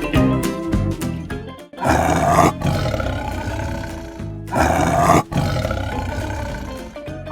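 Big cat roaring twice, two loud, rough roars about two and a half seconds apart, each fading out slowly, over a backing of upbeat music that plays alone for the first couple of seconds.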